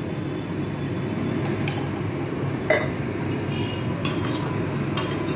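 A few light metallic clinks of a small cup or spoon against a steel karahi, spread over a few seconds, over a steady low background rumble.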